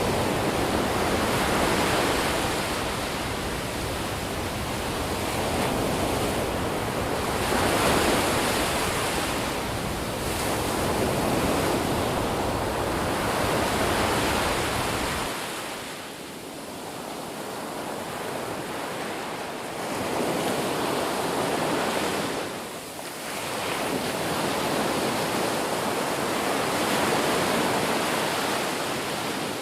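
Sea waves breaking and washing ashore, the surf swelling and ebbing every few seconds. The deep low rumble drops away about halfway through.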